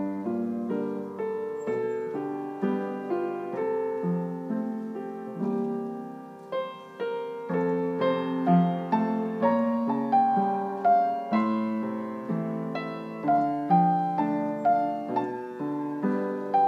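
Upright piano playing a slow instrumental interlude: a melody of single notes over ringing chords, each note struck and left to fade.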